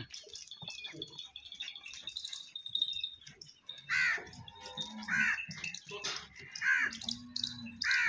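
About four loud, harsh, caw-like animal calls, starting about halfway through and coming a second or so apart, over low yard background noise.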